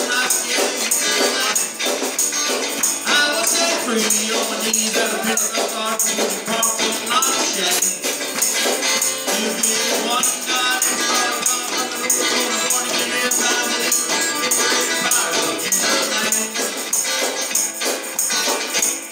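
Live gospel music led by an electric guitar, played as an instrumental stretch with no words sung. It has a thin sound with almost no bass, and it stops right at the end.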